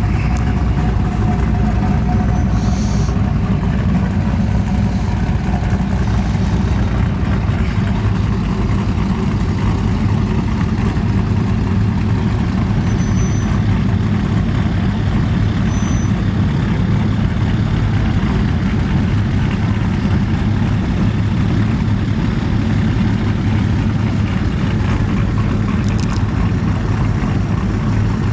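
A pickup truck engine running steadily with a constant low hum, with no revving.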